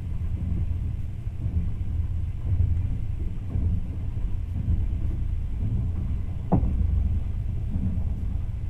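Steady low rumble of a vehicle in motion, heard from inside, with one short sharp knock about six and a half seconds in.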